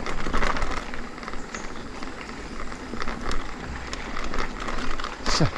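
Mountain bike riding noise: a steady rough rush with many scattered clicks and rattles. One quick sound falls steeply in pitch near the end.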